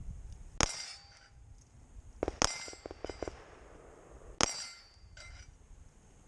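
Three pistol shots about two seconds apart, each followed by the clang and ringing of a struck steel plate on a plate rack, with a few smaller metallic clanks after the second.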